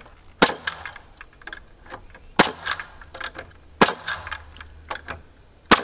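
Four loud, sharp knocks of a hand hammer striking framing lumber, spaced about one and a half to two seconds apart, with lighter taps and clicks between them.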